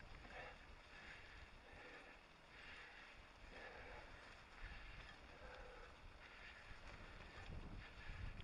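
Faint wind rush and low rumble on a helmet-mounted camera as a mountain bike rolls over grass, with soft swishes recurring about once a second.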